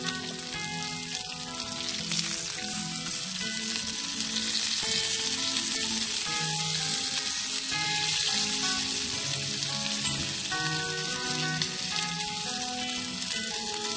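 Food sizzling steadily in a hot pan, under background music with a melody of held notes.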